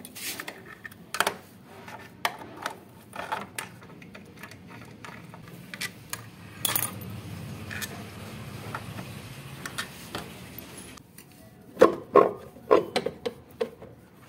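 Scattered light metallic clicks and clinks of hands and tools working the transmission (CVT) cover of a TVS Ntorq scooter loose, with a quick run of louder clicks near the end.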